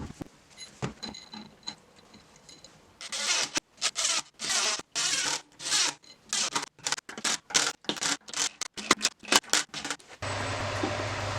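A run of short scraping strokes, each under a second, coming faster towards the end. About ten seconds in, an electric machine switches on abruptly and runs with a steady hum and whir.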